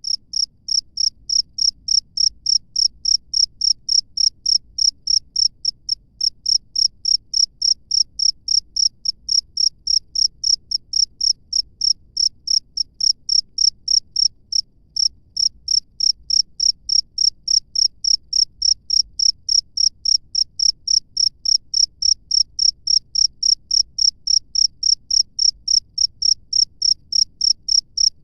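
A cricket chirping steadily, a high-pitched pulse repeated about three to four times a second, with a brief pause about halfway through.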